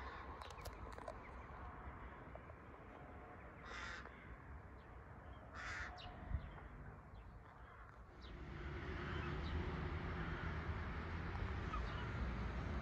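Two harsh crow caws about two seconds apart, over a low background rumble that grows louder about two thirds of the way in.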